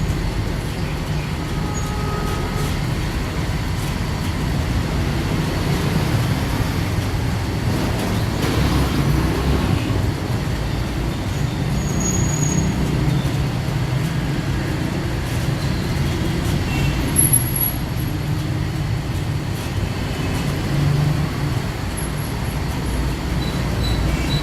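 Steady low rumble of motor vehicles or traffic, with no distinct events.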